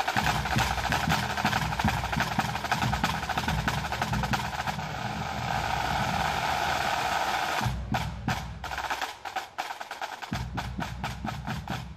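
Pipe band drum corps of high-tension snare drums with tenor and bass drums, playing fast rolls and rudiments that build into a sustained roll. About two-thirds of the way in the roll breaks off into sparser, separate strokes that grow quieter.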